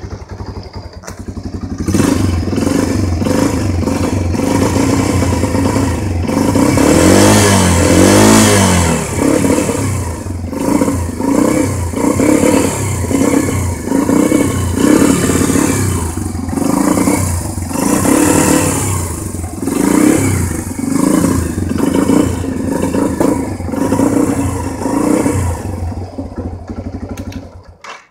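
Rieju MRX 125 motorcycle engine running, revved up about two seconds in. It is taken through a long rev up and down, then blipped over and over, roughly once a second, and cuts off just before the end.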